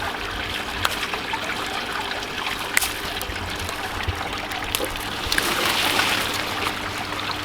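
Water trickling steadily in an aquaponics media bed, with a few sharp clicks scattered through it and a slightly louder wash of water a little past halfway.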